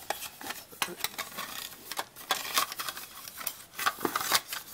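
Hard plastic model-kit parts clicking and knocking together as they are handled, with light rustling between the clicks.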